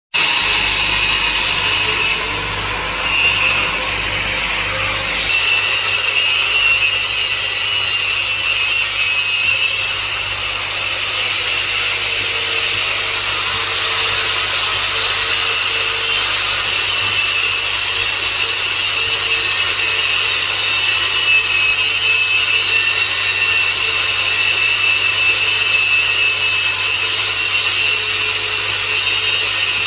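Angle grinder cutting metal with its disc, running without a break: a steady high whine over a loud hiss.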